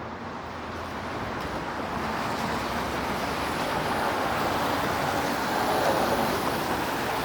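Road traffic on a rain-wet city street: a steady hiss of tyres and engines that slowly grows louder, as a vehicle passes close by.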